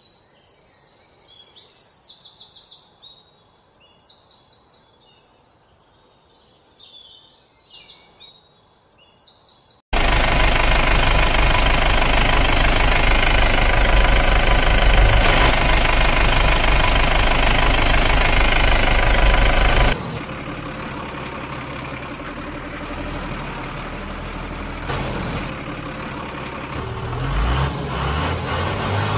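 Small birds chirping in repeated short phrases. About ten seconds in, a loud engine-like running noise with heavy bass cuts in abruptly. About ten seconds later it drops suddenly to a quieter, steady engine sound, which swells a little near the end.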